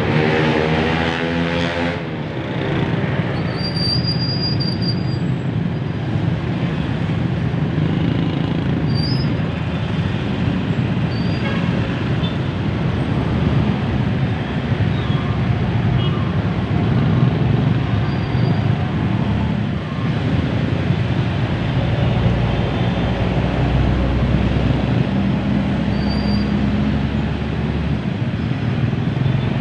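Dense, slow-moving road traffic: a steady mix of vehicle engines and tyre noise. In the first two seconds a nearby engine's pitch sweeps down. Past the middle, a deep low rumble swells for several seconds.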